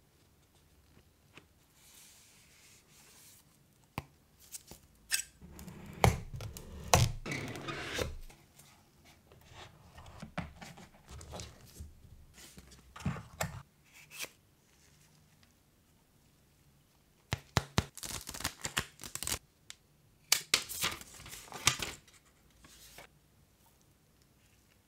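Cardboard and paper packaging of a smartphone box being handled: lid and inner tray lifted out and set down, paper sleeves slid and torn. The taps, clicks and rustling come in several bursts, with quiet between them.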